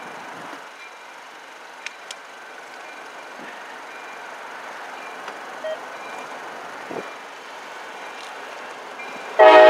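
Faint steady street ambience, then near the end a freight locomotive's air horn starts loudly: a chord of several notes sounded as the CSX grain train approaches along the street-running track.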